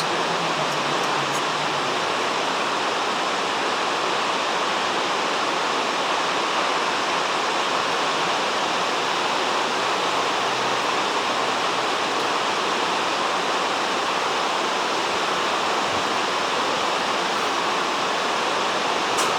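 Iguazu Falls: heavy falling water making a loud, steady rushing roar.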